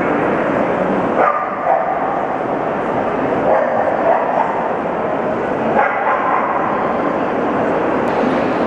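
A small dog yapping in a few short bursts over the steady background noise of a large, busy hall.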